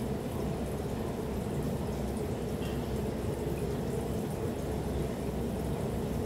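A steady low rushing noise that holds an even level throughout.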